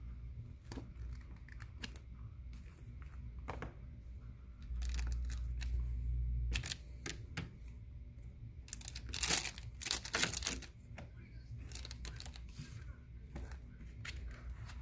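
Paper and plastic rustling and crinkling as a pistol case is unpacked, with light clicks and knocks of handling against the hard plastic case. The crinkling is loudest about two-thirds of the way through, and a low rumble runs for a couple of seconds near the middle.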